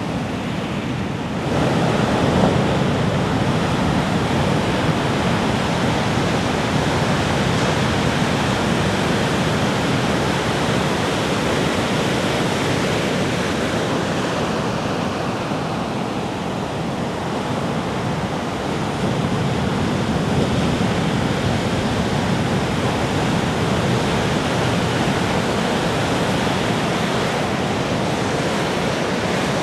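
Ocean surf: waves breaking and washing on a beach in a continuous rush. It swells about a second and a half in, eases off briefly past the middle, then builds again.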